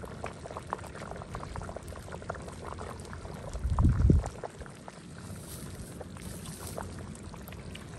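Faint wet clicks and scraping of a metal spoon picking at chicken curry in a ladle held over the cooking pot, with liquid sounds of the gravy. A brief low rumble comes about halfway through.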